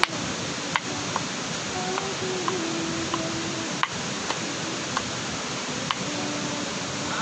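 Kitchen knife slicing shallots on a wooden cutting board: sharp taps of the blade on the board at an uneven pace, about one or two a second, over a steady rush of water.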